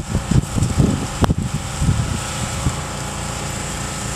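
Wind buffeting the microphone in irregular low gusts over a steady engine drone, with a single sharp click about a second in; the gusts die away after about two and a half seconds, leaving the even drone.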